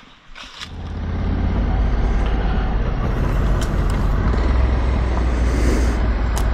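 Honda Africa Twin DCT adventure motorcycle pulling away and riding a gravel dirt trail: engine and wind noise start about half a second in, build over the next second, then hold at a steady loud level.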